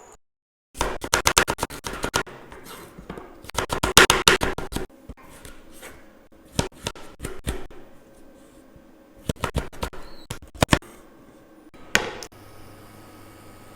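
Kitchen scraping and scratching in short, irregular bursts of quick strokes, starting just after a moment of silence.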